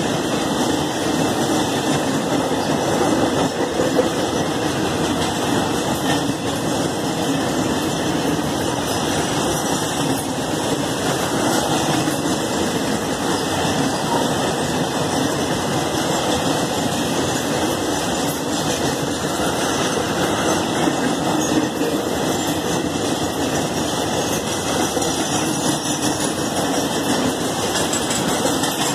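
Empty flat wagons of a long freight train rolling steadily past, their steel wheels running on the rails in a continuous, even noise.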